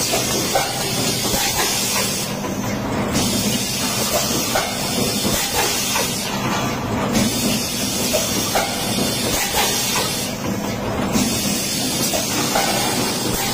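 Pneumatic PET bottle blow-moulding machine running: a steady compressed-air hiss that breaks off briefly about every four seconds, over a low machine hum and light mechanical clatter.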